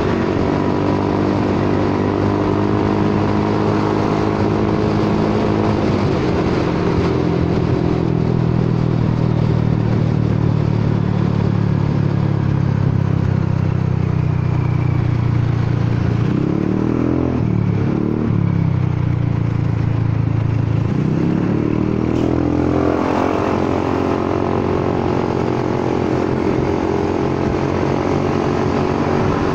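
Honda Forza 300 scooter's single-cylinder engine and exhaust heard from the rider's seat while cruising, a steady engine note. About halfway through the revs drop and waver briefly, then build again.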